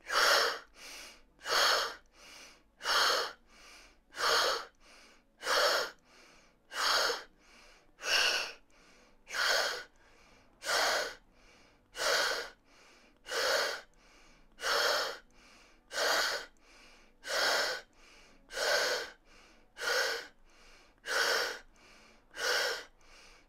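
A man's forceful qigong breathing in a steady rhythm: a sharp, breathy exhale through the mouth about every second and a quarter as the arms push back, with fainter breaths between the first few, timed to the swing of the arms.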